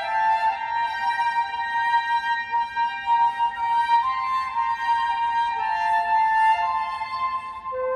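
Violin and flute playing a melody together in a duet, with long held notes.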